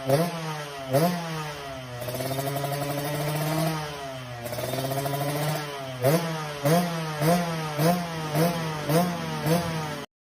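Motorcycle engine revving: two quick throttle blips, then a few seconds held at higher revs that drop back, then a run of short blips about two a second, cutting off suddenly near the end.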